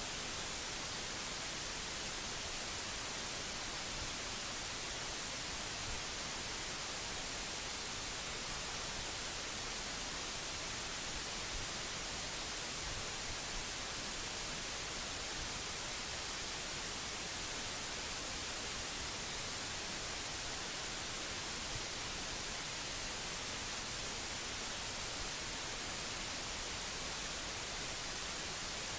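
Steady hiss of recording noise, brighter in the treble, with no other sound.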